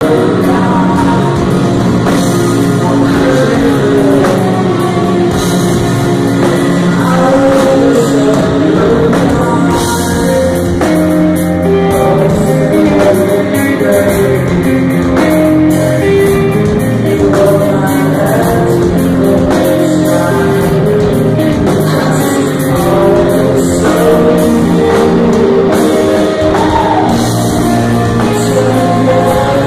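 Live rock band playing loud: a man singing into a microphone over electric guitars and a drum kit.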